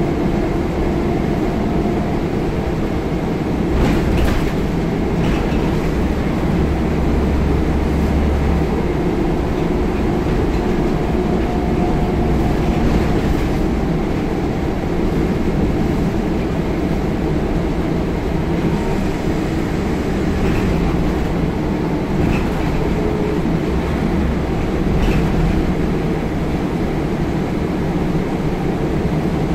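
Scania L94UB single-deck bus heard from inside the saloon while under way: steady diesel engine and road rumble, with a few short knocks and rattles scattered through it.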